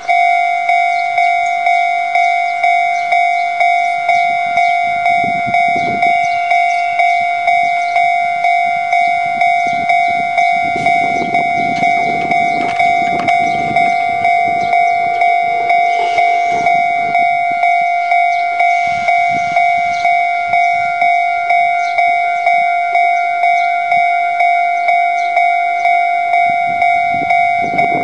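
Japanese level-crossing warning bell starting suddenly and ringing steadily at about two clangs a second, a bright electronic two-tone clang. It signals an approaching train.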